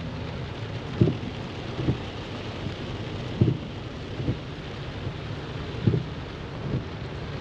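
Steady rain falling, with six short dull low thumps on the microphone spread through it.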